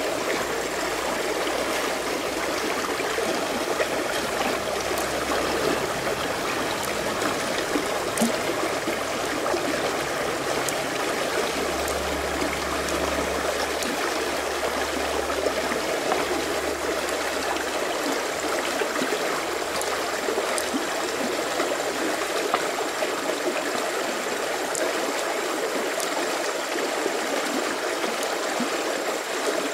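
A river or stream running steadily, an even rush of water.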